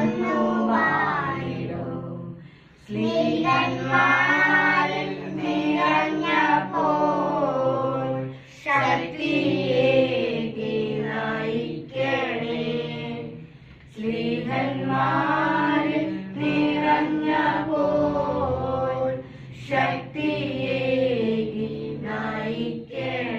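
A small group of children and women singing a hymn together from song sheets, in phrases broken by short pauses for breath every few seconds.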